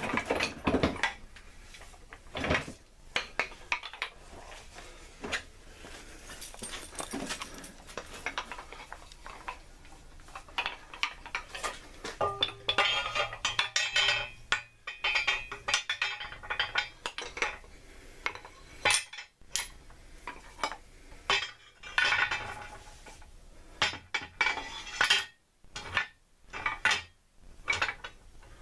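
Steel hammers and tools clinking and clattering against metal as they are handled, in irregular knocks and rattles, busiest around the middle and near the end.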